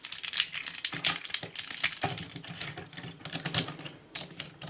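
Small plastic toy parts clicking and rattling as a G1 Transformers Ultra Magnus cab figure is handled and transformed: a quick, irregular run of light clicks.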